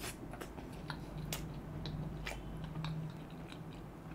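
Close-miked chewing of a mouthful of cheese burst pizza, with many small mouth clicks scattered irregularly through it.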